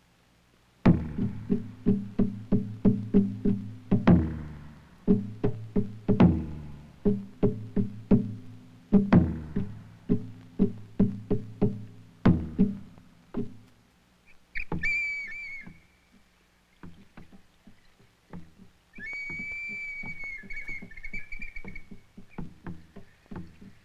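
Documentary background music: low notes struck in a quick, steady rhythm, which fade out after about thirteen seconds and give way to a high held tone sounding twice, once briefly and once for about three seconds.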